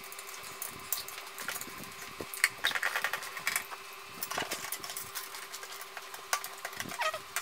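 Scattered clicks, clinks and short rattles of computer hardware being handled as an optical drive is fitted into a PC case, busiest a few seconds in, over a faint steady hum.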